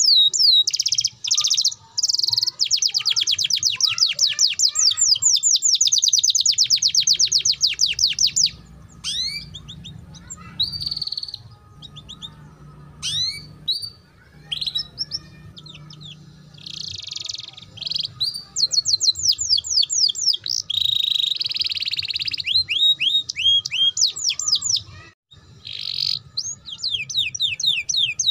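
Domestic canary singing a rapid chattering trill, the 'ngeriwik' style: long runs of fast, repeated falling high notes, broken in the middle by a stretch of sparser, scattered notes before the fast trilling resumes.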